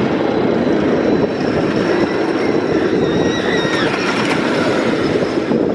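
Steel roller coaster train (Chance Rides Hyper GT-X) running fast along its track, with a steady rumble and rattle of wheels on the steel rails as it passes overhead.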